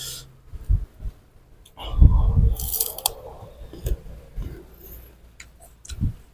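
Close-miked crunching and chewing of unripe green mango, the loudest crunch about two seconds in, with scattered small clicks and taps.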